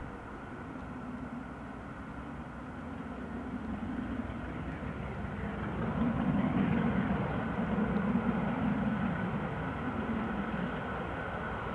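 GWR King class steam locomotive 6024 King Edward I running at speed with its train, its four-cylinder exhaust a steady purr echoing back across the water. The sound grows louder about halfway through as the engine draws nearer.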